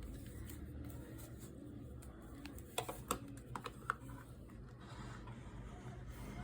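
A quick run of light clicks and taps, like small hard objects being handled, bunched a little before halfway through, over a steady low hum.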